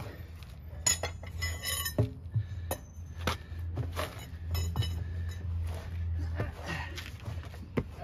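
Steel tire irons clinking and clanging against a steel wheel rim and against each other as they are handled and worked around the bead. There are several sharp, briefly ringing metal strikes, over a low steady hum.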